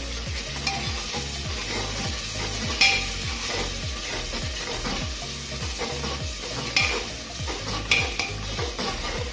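Slotted metal spatula stirring and scraping a thick onion-and-spice masala sizzling in oil in an aluminium pressure cooker, with a few sharp clinks of the spatula against the pot.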